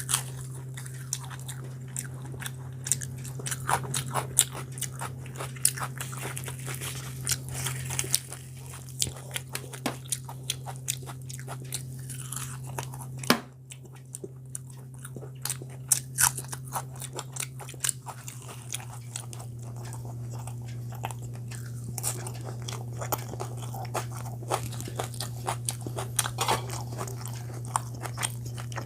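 A person eating close to the microphone, biting and chewing puri and chicken with many short crunches and mouth clicks. A steady low hum runs underneath.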